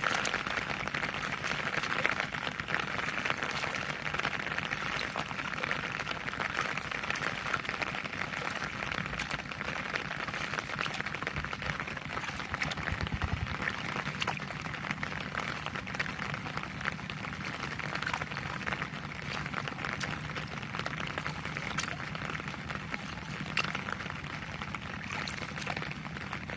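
Heavy rain falling steadily: an even hiss filled with countless individual drops pattering on surfaces.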